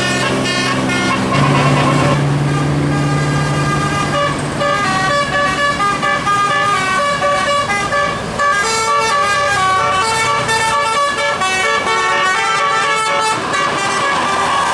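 Bus's multi-note musical 'telolet' air horn playing a fast tune of short stepped notes, with vehicle noise underneath.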